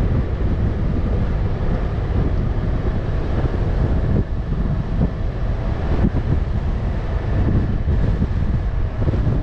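Toyota FJ Cruiser driving on a dirt trail: a steady rumble of engine and road noise under heavy wind buffeting on the microphone, with a few knocks from about four to six seconds in.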